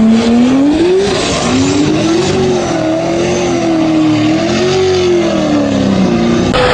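Drift cars running hard at high revs, the engine pitch rising and falling as the drivers work the throttle through the drift, over a haze of tyre noise. The revs drop away near the end.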